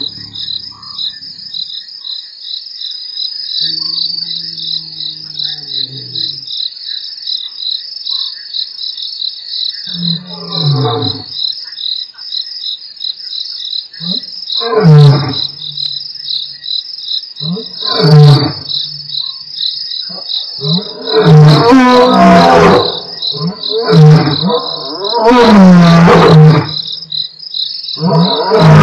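Two male lions roaring, building from a few low drawn-out moans to a run of very loud full-throated roars in the second half. A steady pulsing chorus of crickets runs underneath.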